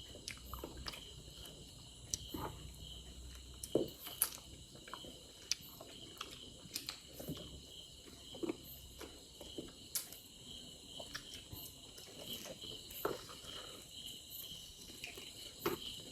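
Faint chewing and mouth smacks from people eating chicken, with scattered small clicks. Behind it runs a steady high, pulsing chirring of crickets.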